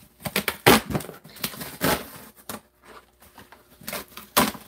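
Cardboard shipping boxes being opened and handled: an irregular string of sharp knocks and rustles.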